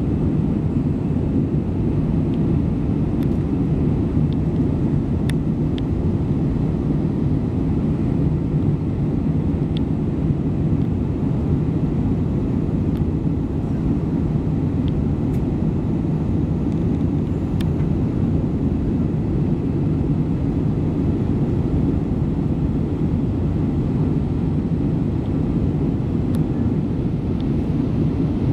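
Steady cabin noise of a jet airliner climbing after takeoff: a low, even drone of engines and airflow heard from inside the cabin.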